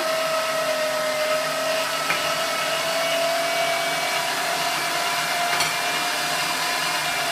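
Geepas electric meat grinder running steadily, its motor giving a constant high whine.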